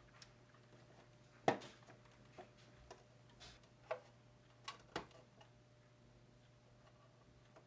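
Faint, scattered clicks and taps, the loudest about one and a half seconds in: small parts and hardware being handled during reassembly.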